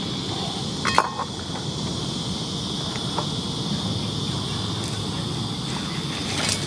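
Steady high trill of crickets in the grass, with a short ringing clink of cookware about a second in and a brief clatter near the end as cockles are stirred into the pan.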